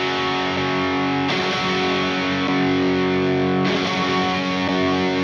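Electric guitar through the drive side of a Valco Bloodbuzz drive/fuzz pedal with its voice control on 3, playing distorted chords that are held and left to ring. The chord changes about a second in and again near four seconds in. To the player, the voice setting seems to round off the bottom end.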